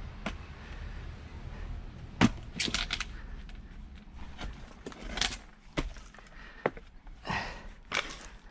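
Firewood splitting by axe: one sharp crack as the blade strikes the log about two seconds in, then a quick clatter of small knocks, followed by several lighter knocks and short scraping swishes.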